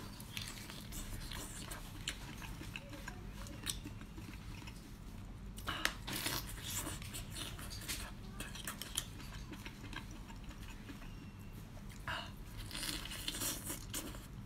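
A person biting and chewing lobster meat: soft wet mouth clicks and small crunches, a little louder about six seconds in and again near the end.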